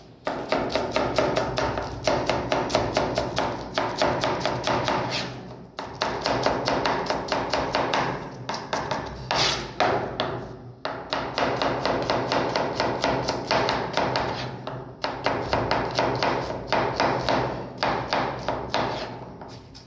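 Chef's knife chopping vegetables on a wooden cutting board: quick, even runs of blade strikes against the board, breaking off briefly a few times.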